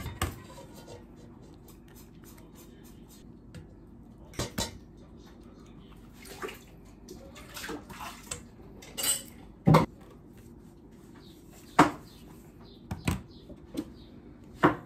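Stainless steel mixing bowls knocking and clinking as they are handled, with eggs cracked on a bowl's rim: scattered sharp taps a second or more apart.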